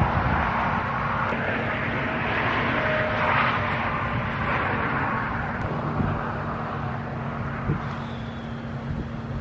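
A distant engine drone, a steady roar over a low hum, slowly fading over the seconds.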